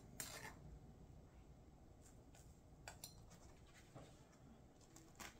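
Near silence with room tone. A knife scrapes briefly across a toasted bun just after the start, and a few faint taps follow as fried fish fillets are handled and laid on the buns.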